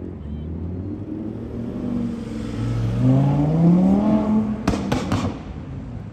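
Audi R8's V10 engine accelerating away, its note climbing steadily in pitch over about two seconds, then a few sharp cracks as it comes off the throttle.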